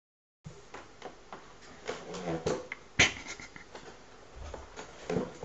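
A cat making a few short vocal sounds, among scattered sharp knocks and rustles of cardboard, with one loud knock about three seconds in.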